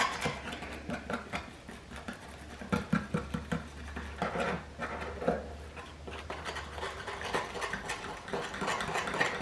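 A utensil scraping and tapping rapidly and irregularly against the inside of a ceramic ramekin, whisking dry brownie ingredients (cocoa powder and baking powder) together. A low steady hum runs underneath until about two seconds before the end.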